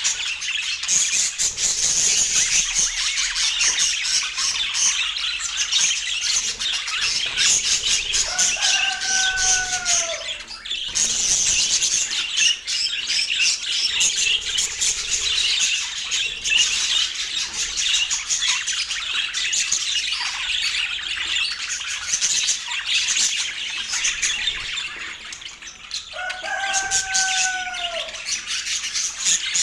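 A flock of budgerigars warbling and chattering nonstop in fast, high chirps. Twice, a lower, drawn-out call that bends down in pitch stands out.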